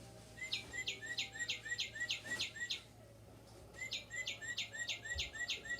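Audubon plush northern cardinal toy playing its recorded cardinal song: two phrases of quick, down-slurred whistled notes, about four a second, with the second phrase starting about halfway through.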